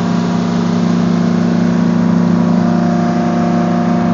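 Motorboat engine running steadily under way, a strong low hum that rises slightly in level about a second in.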